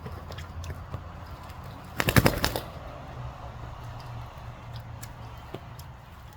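Young racing pigeon bathing, beating its wings in the bath water: a loud burst of rapid wing flaps and splashes about two seconds in, lasting about half a second, with faint scattered ticks and splashes around it.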